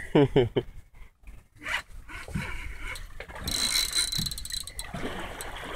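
Spinning fishing reel working against a hooked fish, with a mechanical whirr from the reel for about a second past the middle.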